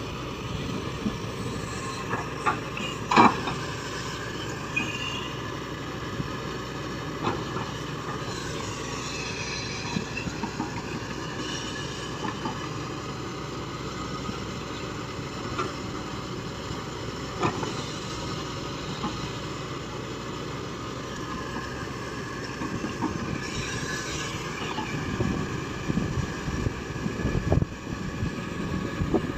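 Shantui excavator running steadily while digging, with its hydraulics whining and gliding up and down in pitch, and occasional sharp metal knocks from the bucket, the loudest about three seconds in. The machine grows louder near the end.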